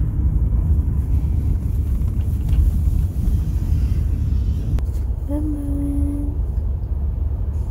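Steady low rumble of a car cabin on the move. About five seconds in, a cat shut in a pet carrier gives one long, slightly rising meow.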